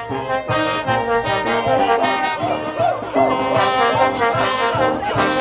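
Brass band playing a tune, several horns sounding together in a steady rhythm.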